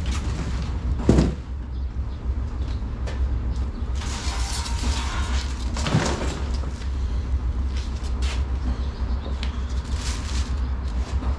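Cardboard shipping box and packing being handled as a part is pulled out: scraping and rustling, with two knocks about a second in and about six seconds in, over a steady low hum.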